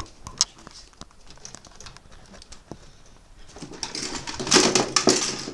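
Caged pet bird chirping and chattering, with a few faint calls at first and a louder run of quick chirps from about two-thirds of the way in.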